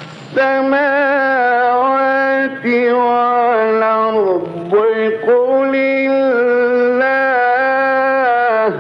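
A man's voice in melodic Quran recitation (tajweed), holding long notes with sliding ornaments in several sustained phrases, with short breaks about two and a half and five seconds in. The phrase ends just before the close.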